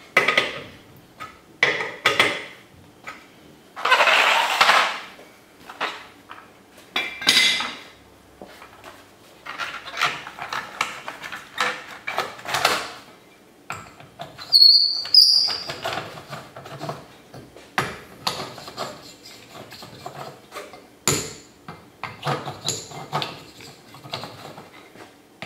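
Metal tools and wheel parts clanking and clattering in irregular short bursts during a car wheel change, with a brief high squeal about fifteen seconds in.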